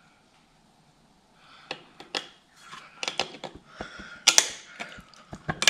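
Irregular sharp metallic clicks and clacks of snap ring pliers and other hand tools working a stubborn snap ring out of a driveshaft universal joint. The clicking starts after a quiet second or so and comes in uneven clusters, loudest about four seconds in.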